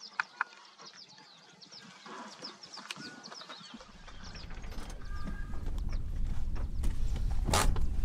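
Birds calling with many short, quick chirps; about four seconds in, a low rumble starts and grows steadily louder, and near the end a brief loud rush of noise stands out.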